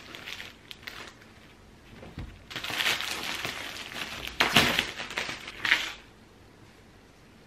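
Clear plastic wrapping crinkling and rustling as it is pulled off a wooden bed tray, in several bursts, the loudest a little past halfway, dying down about six seconds in.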